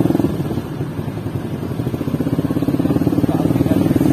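A vehicle engine running with a fast, even beat. It eases off slightly about half a second in and picks up again toward the end.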